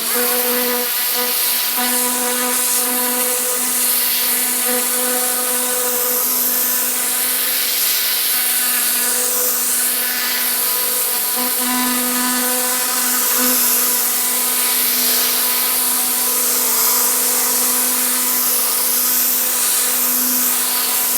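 Pressure washer running steadily, with a constant mechanical hum and the loud hiss of the high-pressure spray, which swells and fades as the jet sweeps across a house wall.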